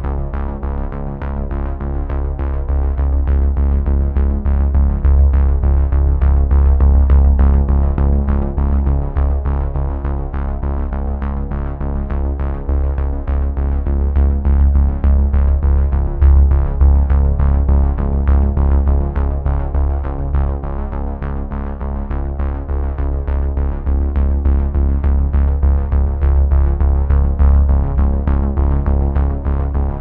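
Background music: an electronic synthesizer track with a steady beat.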